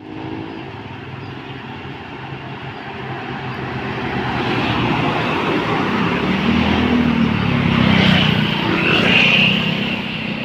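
Large tour bus driving past, its engine and road noise growing louder as it comes close and peaking near the end.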